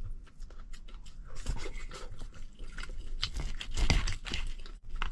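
A person chewing and crunching crispy scorched rice crust (guoba) from the bottom of a claypot, with irregular crackles, louder about four seconds in.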